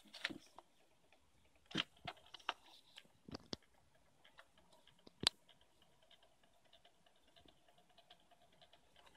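Faint, scattered clicks and taps from a hard plastic portable cassette player handled and turned over in the hand, several in the first few seconds and one sharp click about five seconds in.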